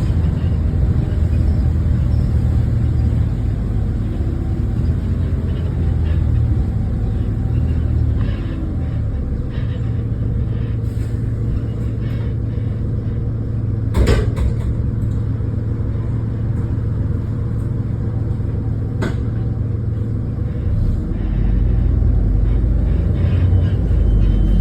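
Diesel engine of First bus 69501 (BJ10 VGD) running, heard from on board as a steady low rumble. A sharp knock comes about halfway through, and another about five seconds later.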